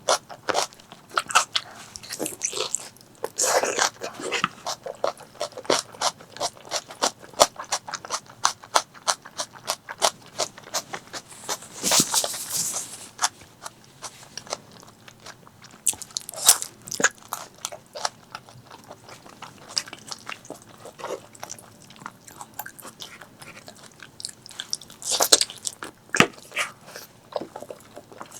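Close-miked eating of pork leg curry with rice: continual chewing and biting with many quick wet mouth clicks, and a few longer, louder noisy bursts.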